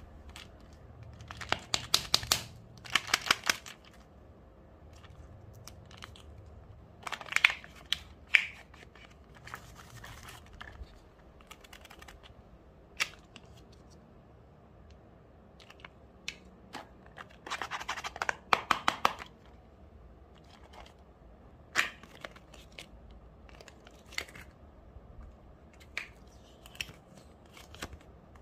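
Plastic wrapper of a Kinder Joy egg crinkling and tearing as it is unwrapped by hand, with the plastic capsule and its peel-off lid handled and opened. The crinkling comes in several short bursts, with single sharp clicks between them.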